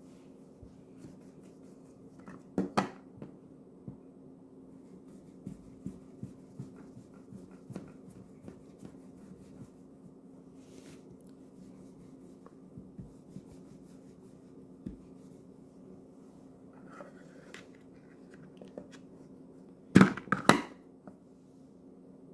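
Plastic Play-Doh Fun Factory press being handled on a stone table top: scattered light taps and clicks, a sharp clatter of clacks about three seconds in and a louder burst of clacks near the end, over a faint steady hum.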